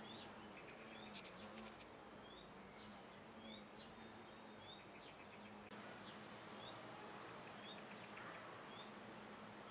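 Faint outdoor insect ambience: a steady low buzz, with short high rising chirps about once a second and brief rapid clicking trills.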